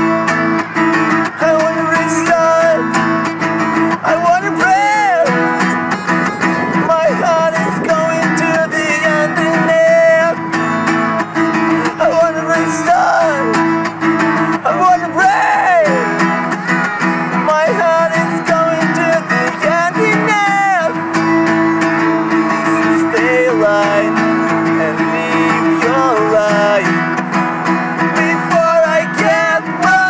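Acoustic guitar strummed in a steady rhythm through an instrumental passage of a midwest-emo song, with a few gliding higher notes over the chords.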